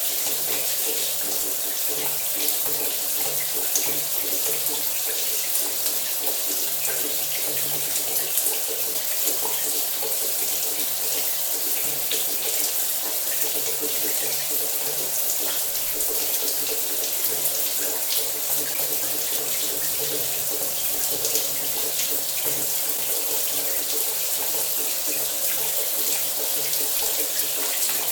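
Shower running steadily: water spraying and splashing in an even, unbroken hiss.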